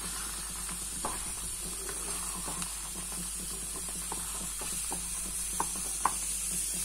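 Wooden spatula stirring thick sweet pongal in a metal pot, with scattered soft scrapes and taps against the pan and a couple of sharper clicks near the end, over a steady high hiss.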